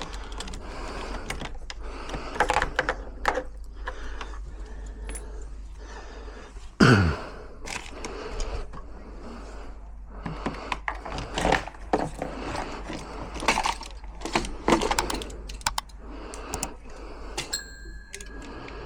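Metal clicks, rattles and key jangles of a locksmith working on a door lock with keys and tools, with a loud thud about seven seconds in and a short high tone near the end.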